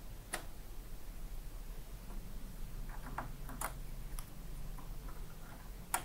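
Faint clicks and taps of a USB flash drive being handled and plugged into a USB port on an HP T620 Plus thin client, with a sharper click near the end as the plug goes in.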